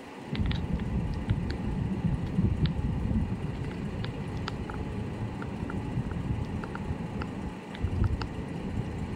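Low, gusty rumble of wind on the microphone, with faint short high chirps scattered throughout.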